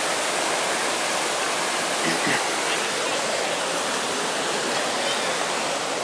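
Mountain stream rushing over rocky cascades and a small waterfall: a steady, even rush of water.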